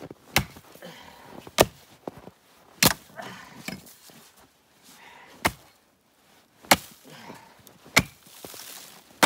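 Axe chopping into a beaver carcass: about six sharp, separate strikes, a little over a second apart, with a longer pause near the middle and softer crunching between blows.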